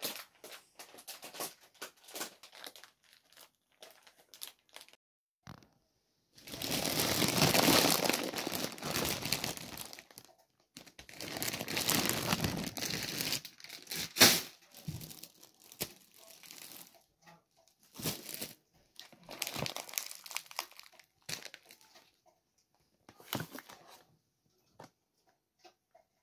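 Plastic food packaging crinkling and rustling as packets are handled and shifted. It comes in several spells a few seconds long with quiet gaps between, and there is one sharp crackle partway through.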